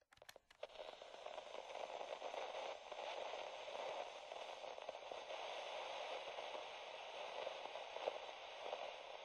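Crackling static hiss like a detuned radio, opening with a few sharp clicks and then running steadily.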